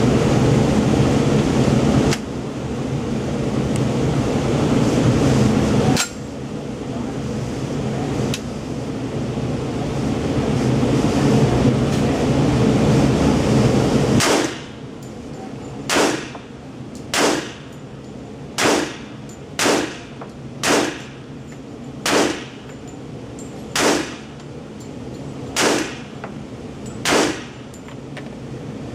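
A loud steady noise for about the first half gives way to single gunshots from a KRISS Vector .45 ACP carbine, fired one at a time. There are about ten shots, roughly one every second and a half, each with a short echo.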